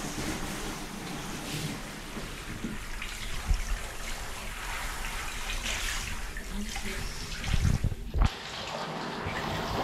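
Handheld shower spraying water over a Labrador's coat: a steady hiss of running water, with a few low thumps, one about a third of the way in and a cluster near the end.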